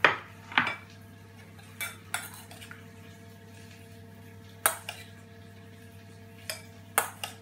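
A metal spoon clinking and scraping against a stainless steel mixing bowl as chopped avocado is scooped out and served, in sharp, irregular clinks a second or more apart, over a faint steady hum.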